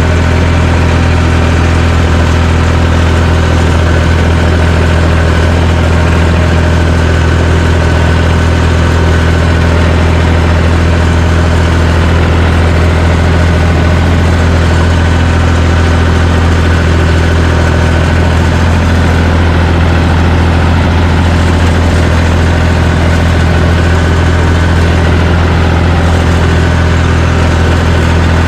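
John Deere 350 crawler dozer's diesel engine running at a steady, unchanging speed, a low drone with no revving.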